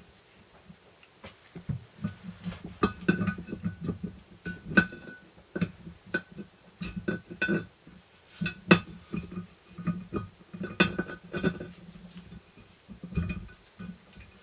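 Metal parts of a Land Rover Series 3 transfer box being assembled: a steel shaft with a coil spring is slid and pushed into the aluminium front output housing. The parts clink and knock irregularly, many strikes giving a brief metallic ring.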